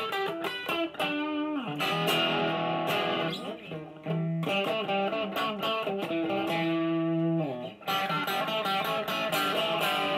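Electric guitar lead playing, picked with a small Dunlop Jazz III pick: quick single-note runs broken by a string bend and a few long held notes.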